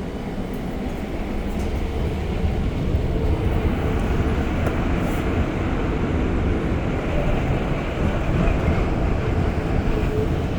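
Interior running noise of an REM light-metro car in motion: a steady low rumble that grows a little louder about two seconds in.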